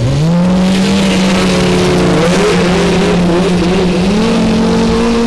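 Racing lawn tractor's small engine revving up and then running at high revs, its pitch rising at the start and then holding steady with a slight waver.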